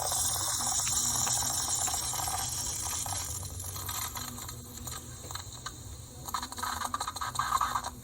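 Tassimo pod coffee machine dispensing a drink: a steady hiss of hot liquid streaming into a cup over the low hum of its pump, slowly fading, with irregular sputters near the end as the brew finishes.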